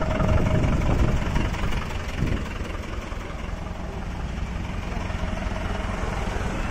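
A Tata utility vehicle's engine running close by as it moves slowly, a low rumble that is loudest in the first couple of seconds, with street traffic around it.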